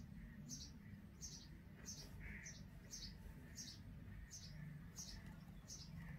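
Indian robin nestlings cheeping in the nest: a faint, regular run of short, high, falling cheeps, about two a second, the begging calls of chicks waiting to be fed.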